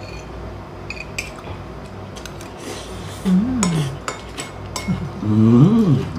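A man eating by hand: small clicks and clinks of a plate and dishes, with two short rising-and-falling 'mmm' hums, the second and louder one near the end.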